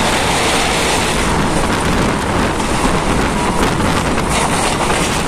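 Steady rushing noise and rumble of a moving vehicle, heard from on board with wind buffeting the microphone.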